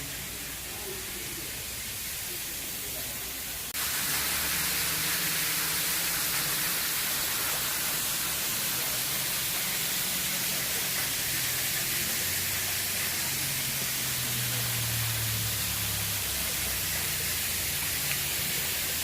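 Waterfall: a steady rush of falling water. About four seconds in it jumps suddenly louder and brighter, like a closer, hissier rush.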